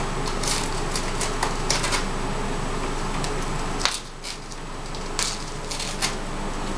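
Bronze-winged pionus parrot tearing and chewing newspaper with its beak: irregular crackles and rips of paper in short clusters, over a steady background hiss.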